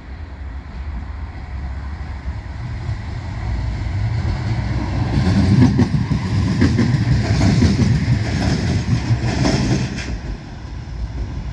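Bombardier M5000 light-rail tram passing close by, growing louder as it approaches, loudest between about five and ten seconds in, then fading. Its wheels click over the rails while it passes.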